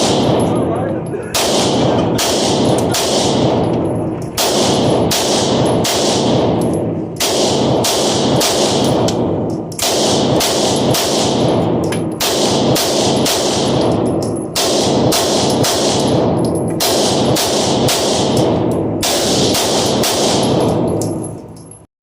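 Glock 19 Gen 3 9mm pistol fired in a steady string from a 27-round magazine, at a bit more than one shot a second, each shot followed by a ringing echo.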